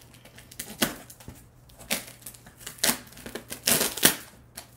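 Kitchen knife slicing through packing tape on a cardboard box, with the tape and cardboard flaps crinkling and ripping as they are pulled apart: a series of short scrapes and rips, the loudest near the end.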